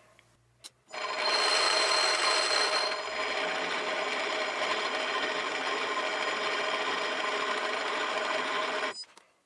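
Metal lathe spinning a small crankshaft in a four-jaw chuck: it starts about a second in, louder and whining for its first two seconds, then runs steadily and cuts off abruptly shortly before the end.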